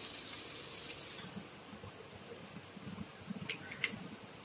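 Eggs being cracked into a metal kadai of frying capsicum masala: a faint, low sizzle, with two or three sharp taps near the end as an eggshell is knocked open.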